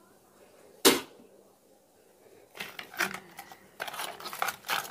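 A single sharp knock about a second in, then a run of crisp crackling and light clicks from about two and a half seconds in, as hands break and move crispy fried battered chicken and fritters on a plastic tray.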